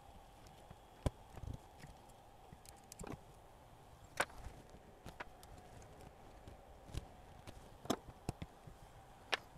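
Scattered light clicks and knocks of small metal and plastic parts as the capstan flywheel and tape mechanism of a cassette deck are handled by hand, about eight in all at irregular intervals.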